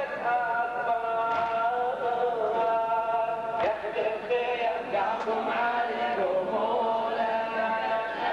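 Male voices chanting a Muharram latmiya lament in long held, gliding notes, with a few sharp thumps cutting through.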